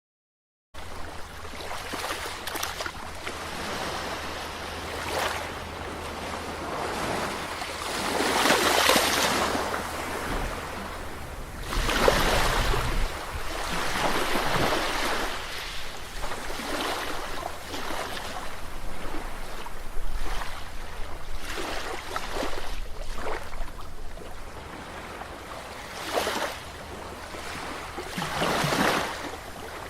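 Ocean waves breaking and washing on a shore, surging and receding every few seconds over a steady low rumble. The sound cuts in abruptly just under a second in, after a moment of silence.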